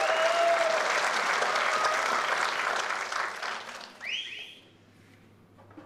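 Theatre audience applauding, with a few whistles through it. The applause dies away after about three and a half seconds, and a short rising whistle sounds near the end.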